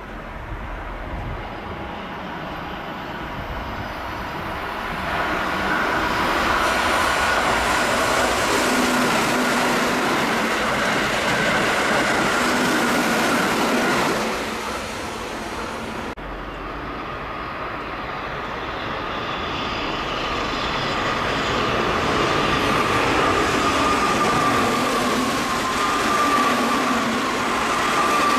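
Two Keihan electric trains pass through the station at speed without stopping. The first is a Keihan 8000 series, the second a green-and-white Keihan train. Each builds to a loud rush of wheels on rail with a high whine over it, and the second train's whine sinks slightly in pitch near the end.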